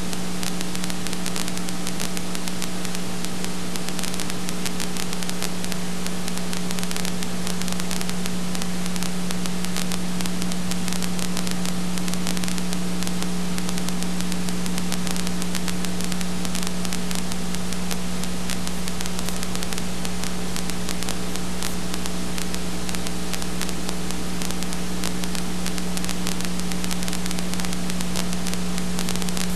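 Steady static hiss with a constant low hum, unchanging throughout: the noise of a silent home movie's transfer, with no sound of its own.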